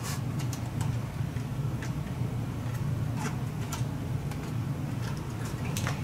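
Scattered faint clicks and taps of fingers pressing and handling tape on a TV panel's flex cable, over a steady low hum.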